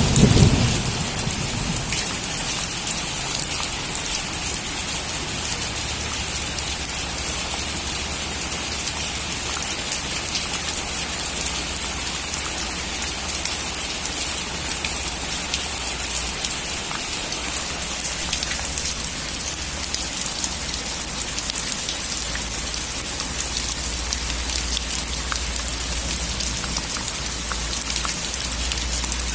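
Steady heavy rain drumming on a metal roof, a dense patter of drops with a low thunder rumble dying away in the first second.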